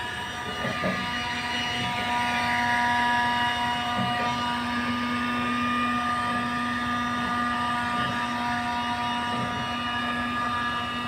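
An engine running steadily, with several steady whining tones over a low hum that comes in about half a second in.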